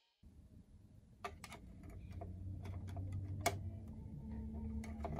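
Small disc being pushed by hand into the loading slot of a Sony MDS-SD1 MiniDisc deck: scattered plastic clicks and taps, the sharpest about three and a half seconds in, over a steady low hum.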